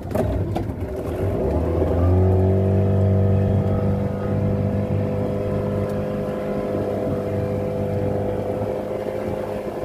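Boat motor speeding up over the first couple of seconds, then running steadily at speed.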